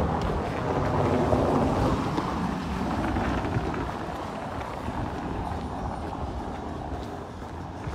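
A vehicle passing and fading away over the first few seconds, with wind buffeting the microphone.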